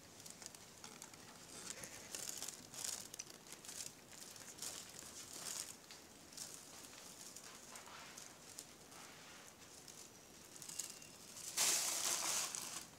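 Scattered soft rustling and crinkling, with a louder rush of rustling about a second long near the end.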